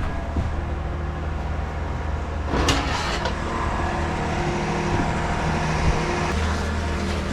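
Truck-mounted concrete pump's engine running steadily with a low hum, with a short rush of noise about two and a half seconds in.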